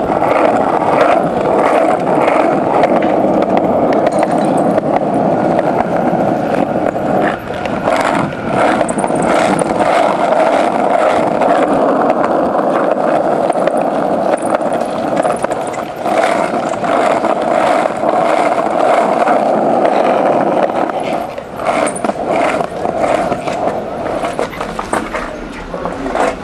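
Skateboard wheels rolling on a concrete sidewalk: a steady grinding roar with sharp clicks from the sidewalk joints, going quieter and more broken in the last few seconds.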